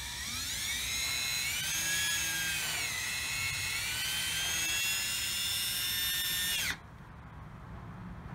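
Cordless drill running against a wooden fence board: the motor whine rises as it spins up, dips briefly about three seconds in, then runs steady and cuts off suddenly near the end.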